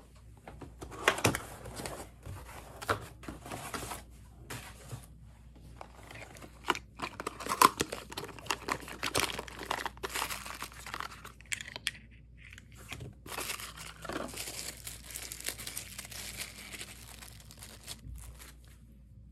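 Cardboard and plastic packaging being unpacked by hand: irregular rustling, scraping and crinkling with scattered sharp taps, including the handling of a small cardboard box. A small plastic bag crinkles near the end.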